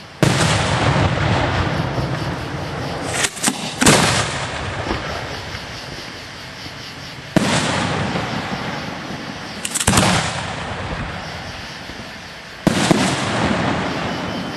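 Aerial fireworks going off close by: three loud booms about five seconds apart, each trailing off over a few seconds, with sharper single bangs in between.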